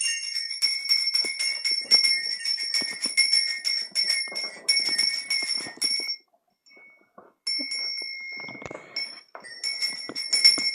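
A small bell shaken rapidly, its clapper striking again and again in a continuous jangling ring. It stops about six seconds in, sounds once more a second or so later, then starts ringing rapidly again near the end.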